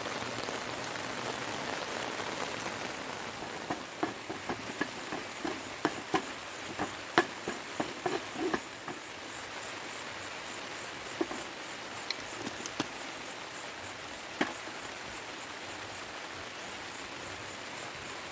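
Steady rain falling, with scattered sharp taps: a cluster of them about four to nine seconds in, and a few more later.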